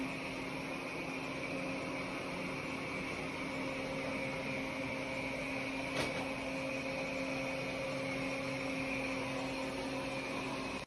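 Airzeen R7 robot vacuum cleaner running with a steady motor hum and airflow noise, with a single sharp click about six seconds in.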